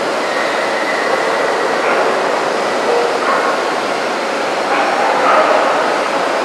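Steady din of a crowded exhibition hall, with dogs barking at times over it.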